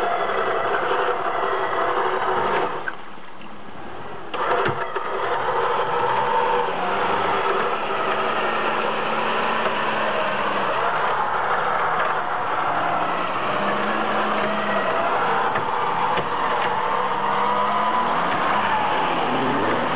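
Suzuki Jimny's engine running under load, its pitch rising and falling with the throttle, as the car is winched out of deep mud. The sound drops away briefly about three seconds in, then picks up again.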